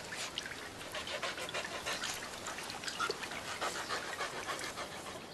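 European mink panting with rapid, short breaths while in labour: the quickened breathing is the sign that another kit is about to be born.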